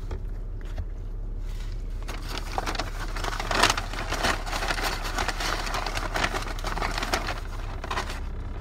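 Paper fast-food bag rustling and crinkling as a hand rummages inside it for leftover fries, starting about two seconds in and loudest around the middle. Under it runs the car's steady low hum.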